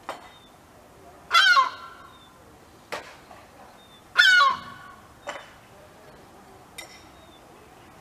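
European herring gull giving two loud, harsh alarm calls about three seconds apart, each about half a second long, with a few short, sharp sounds in between. These are warning calls from a gull guarding its chick on the ground.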